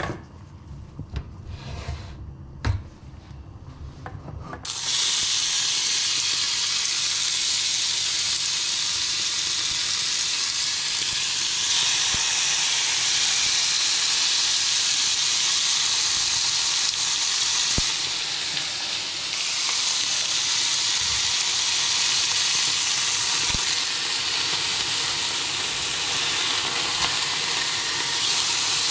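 Sirloin slices sizzling in a hot frying pan, beginning suddenly about five seconds in as the meat goes into the pan and then running loud and steady. Before that, light clinks of a metal bowl and utensils; a few soft knocks come later.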